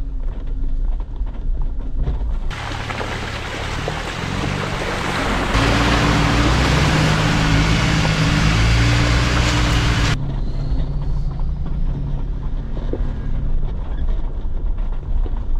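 Jeep engine running steadily, with a loud rushing hiss that starts abruptly about two and a half seconds in, grows louder about five seconds in, and cuts off sharply about ten seconds in.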